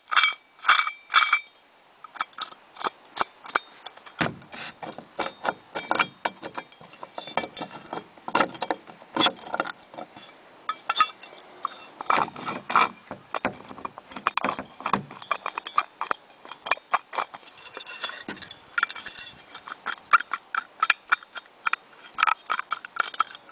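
A removed water pump from a 1983 Toyota pickup making funny noises: irregular metallic clicking and rattling throughout from its failed bearings.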